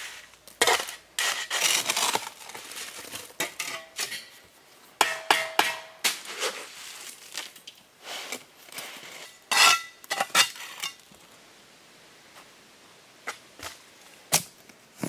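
Steel shovel scraping and knocking on concrete blocks while wet mortar is spread over the top course and pushed into the block cores. Irregular scrapes and clinks come thick at first, then thin out to a few sharp knocks near the end.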